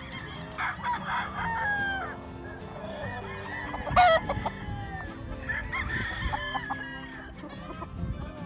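Several gamecock roosters crowing and clucking around the yard, their calls overlapping, with one loud, close call about four seconds in.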